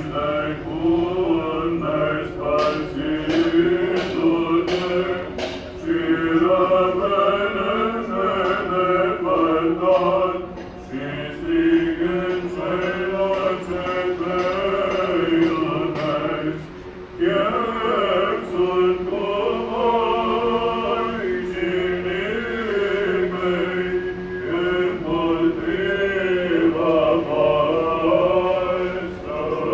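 Church choir chanting an Orthodox liturgical hymn in a continuous sung line, with a brief breath-pause about seventeen seconds in.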